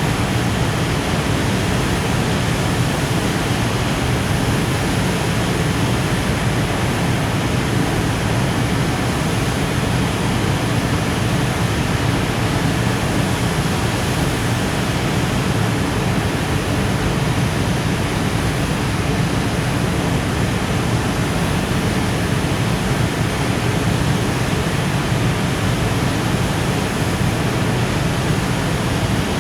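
Freight train of container wagons rolling past at low speed, a steady, even rumble of wheels on the rails.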